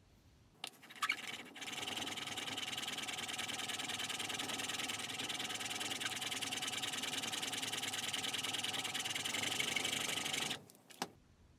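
Spokeshave blade held in a roller honing guide, rubbed in quick back-and-forth strokes on a 6000-grit sharpening stone: a steady scraping hiss of steel on stone while the micro bevel is honed. A few clicks as the guide is set down open it, and a couple more as it is lifted off end it.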